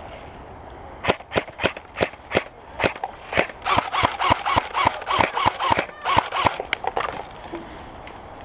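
Airsoft guns firing a rapid string of single shots, about three or four sharp cracks a second, starting about a second in and stopping about a second before the end.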